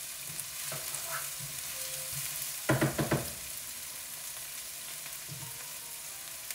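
Green beans, carrots and shallot sizzling steadily in oil in a nonstick skillet, with a few knocks of a wooden spoon against the pan about three seconds in.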